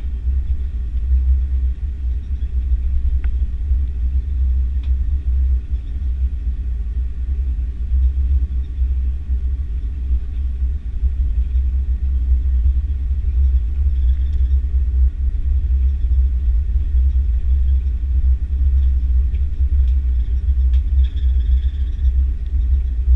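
Airbus A330-300 with Rolls-Royce Trent 700 engines taxiing: a steady low rumble with no rise in engine pitch.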